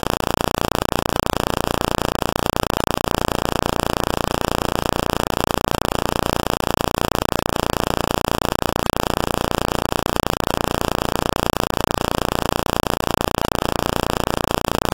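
Loud, steady electronic static hiss that cuts in abruptly, with no game sound or speech beneath it: noise standing in for the audio track.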